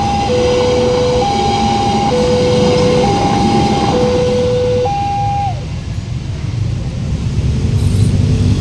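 Newly fitted two-tone warning siren at a railway level crossing, alternating a high and a low note, each held just under a second. It stops about five and a half seconds in, the last note sagging in pitch as it cuts off. Steady train rumble runs underneath throughout.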